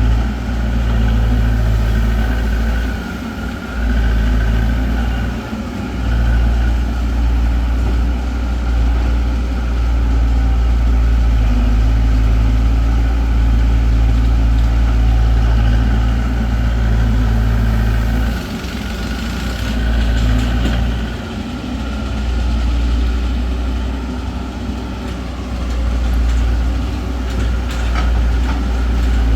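Heavy vehicle engine running steadily, dipping in loudness briefly a few times.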